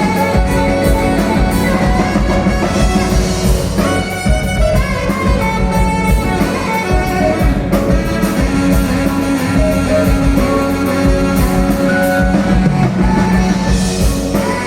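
Live band playing a loose improvised rock jam as stage filler.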